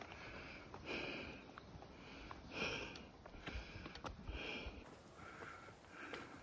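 A person breathing hard, quick puffs in and out about once a second, from the effort of climbing a steep rocky mountain trail.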